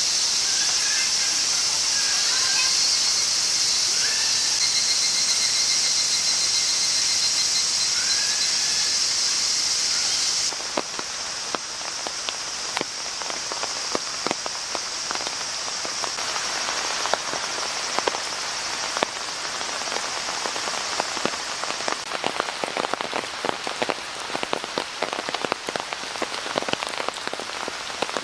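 Cicadas droning with a few short bird chirps, cut off about ten seconds in by rain pattering on leaves in woodland. The rain, at first mistaken for the sound of a stream, grows heavier near the end.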